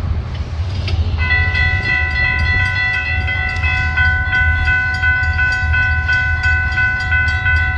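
Railroad grade-crossing warning bell starting about a second in and ringing rapidly and steadily as the crossing activates, over a low rumble of road traffic.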